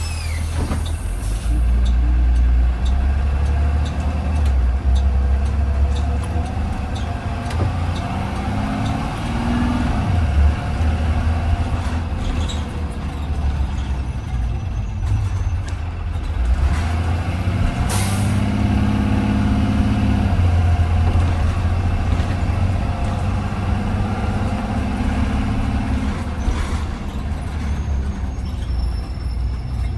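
2020 Blue Bird Vision school bus driving, heard from inside: its engine rumbles steadily, the pitch climbing several times as it pulls and shifts. A short hiss of air comes a little past halfway through.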